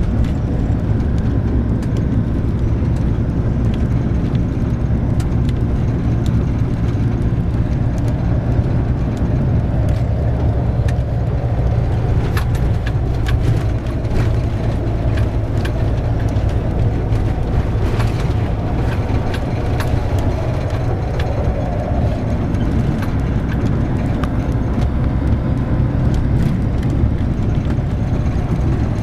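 Steady engine and road noise inside a moving car's cabin, with scattered clicks and knocks between about twelve and twenty seconds in.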